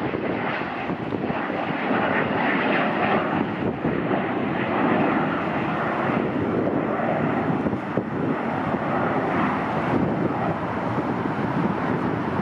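Bombardier Challenger 300 business jet's twin Honeywell HTF7000 turbofan engines at takeoff power: a steady, even jet roar with no distinct tones.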